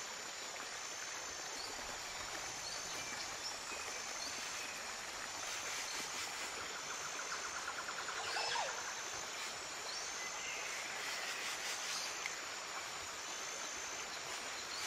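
Shallow rocky stream running steadily over stones, with a few faint bird calls about eight and ten seconds in. Near the end, splashing as someone wades through the water.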